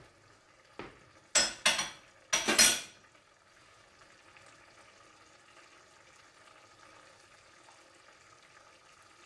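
A small click, then a quick run of loud metallic clatters of kitchenware about a second and a half to three seconds in. After that, the faint steady bubbling of a stew simmering in a stainless steel pot as its gravy thickens.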